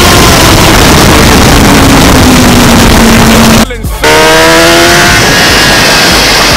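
Kawasaki ZX-10R inline-four race bike engine at high revs under loud wind rush. Its note falls slowly for a few seconds, the sound drops out almost completely for a moment a little over halfway through, and then the note climbs again as the bike accelerates.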